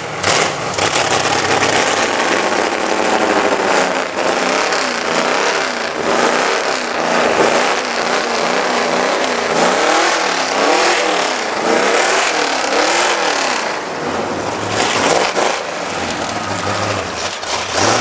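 Vehicle engine running loudly, revved up and down repeatedly through the middle.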